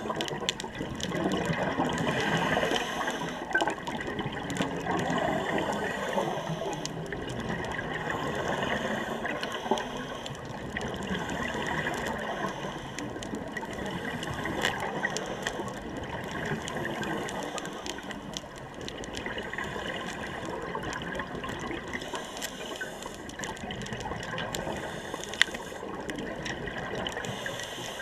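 Underwater sound through a waterproof camera housing: gurgling and rushing of scuba exhaust bubbles, swelling and fading, with a few sharp clicks.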